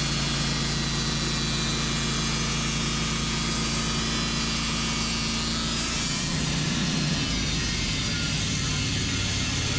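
Portable band sawmill running steadily while its carbide band blade saws through a white pine log; the sound changes about six seconds in.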